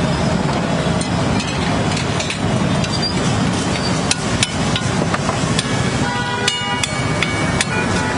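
Metal spatula clanking and scraping on a large flat metal griddle (tawa) as street food is chopped and spread, with sharp clinks coming thicker in the second half and a brief ringing tone about two-thirds through, over steady street noise.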